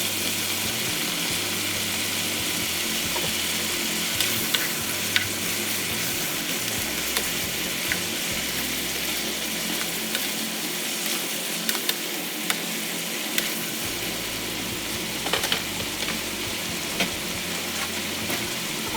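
Food frying in a pan with a steady sizzle, and every second or few a sharp click of a utensil stirring against the pan.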